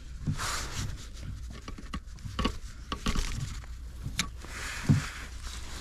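Handling noise from a fishing rod and spinning reel as line is let out: scattered soft clicks and rustles, with one sharp click about four seconds in and a knock near five seconds, over a steady low rumble.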